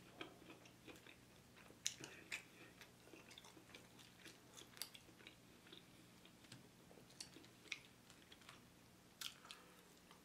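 Faint chewing of boneless chicken wings, with scattered sharp mouth clicks and smacks over a faint steady hum.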